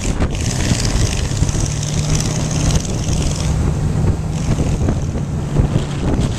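Motor vehicle driving at cruising speed on a paved road: a steady low engine drone under a hiss of wind and road noise, the hiss easing briefly around the middle.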